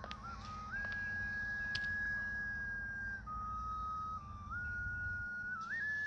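A slow whistled melody: one clear tone holding long notes, stepping down and back up in pitch with short quick turns between them. A low background rumble under it drops away about five seconds in.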